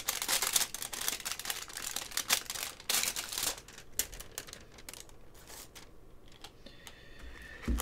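Clear plastic pin sleeves crinkling and rustling as they are handled, busy for the first three seconds or so, then fainter.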